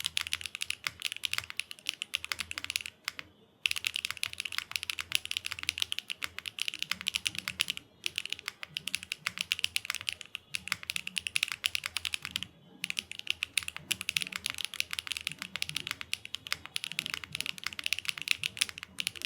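Continuous typing on a Matrix Corsa custom mechanical keyboard with HMX WaveRider V2 tactile switches, GMK Space Cadet keycaps and an aluminium plate with no foam: fast, dense keystroke clacks. The typing pauses briefly three times.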